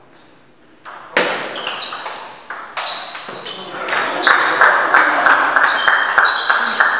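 Table tennis ball struck and bouncing with short high pings as a rally ends, followed by spectators clapping and calling out, the clapping growing louder in a quick, even run near the end.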